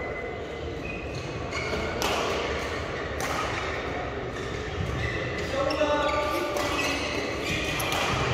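Badminton play in an echoing sports hall: a few sharp knocks, such as racket strikes or footfalls, and clusters of short, high squeaks from shoes on the court mat, most of them a little past the middle.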